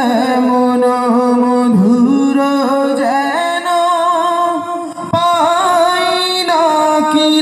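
A man singing a Bengali Islamic gojol (nashid) unaccompanied into a microphone, amplified through stage loudspeakers. He holds long, wavering notes and steps up in pitch several times.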